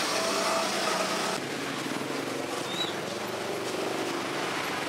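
Cakwe dough sticks deep-frying in a wok of hot oil: a steady hissing sizzle that cuts off abruptly about a second and a half in. Steady street background noise follows.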